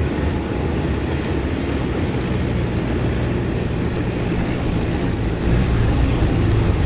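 Off-road vehicle engine running steadily, a low rumble under a wash of noise.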